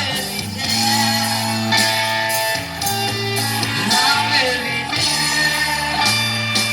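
Music: a singer's voice over guitar-led band accompaniment.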